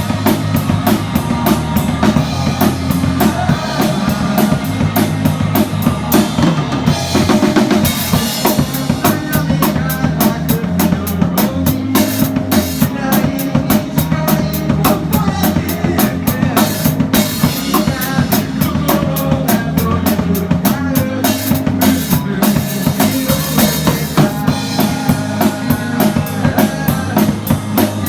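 A band playing live, heard from right beside the drum kit: a busy beat of kick drum, snare and cymbals dominates, with sustained pitched instruments under it, without a break.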